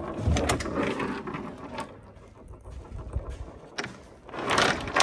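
Plastic frunk tub scraping and knocking against the car body as it is worked loose and lifted out, in irregular rubbing bursts with a sharp click near the middle and a louder scrape near the end.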